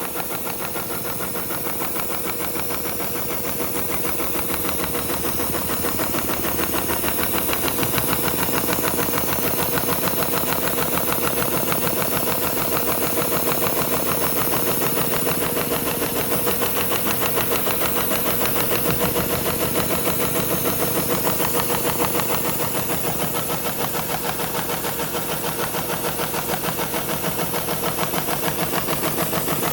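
SEWPRO 273-6040 programmable heavy-duty sewing machine, with its shuttle hook and large bobbin, running steadily through a long automatic diamond-stitch pattern with heavy thread: a fast, even mechanical rattle of stitches, a little louder in the middle.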